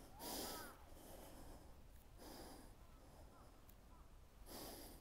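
Near-quiet outdoor background: faint bird calls in the distance, and three soft puffs of noise like breaths, about two seconds apart.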